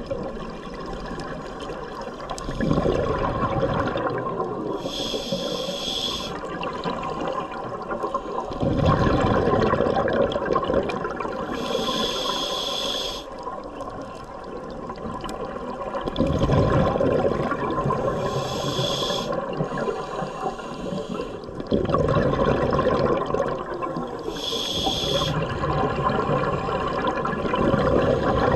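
Scuba diver breathing through a regulator underwater: a short high hiss on each inhale, then a rush of exhaled bubbles. Four to five breaths come at an even pace, about one every six seconds.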